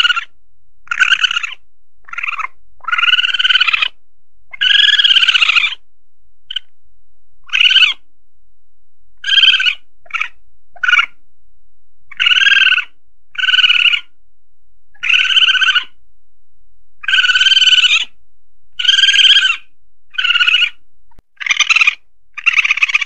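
Asian palm civet calls, played as a hunting lure: a string of short, shrill cries repeating about once every second or two, some held for about a second.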